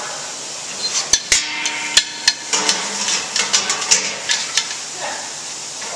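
Stainless sheet-metal access door lid clanking against its frame as it is seated and handled: a string of sharp metal knocks and taps, a few of them ringing briefly.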